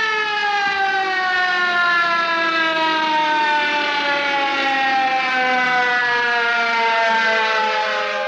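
A siren sounding one long, slowly falling note.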